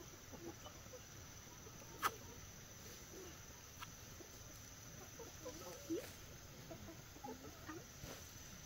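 Chickens clucking faintly in short scattered calls, busiest in the second half, with one sharp click about two seconds in.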